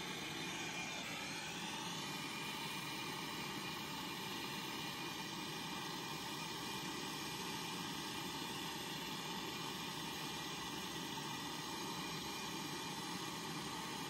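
Gas brazing torch running with a steady rushing hiss as its flame heats the copper tube joints at a refrigerator compressor. A faint falling whistle sounds near the start.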